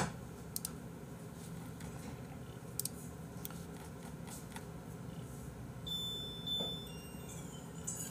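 Quiet room tone with a few faint clicks, and a brief thin high tone about six seconds in.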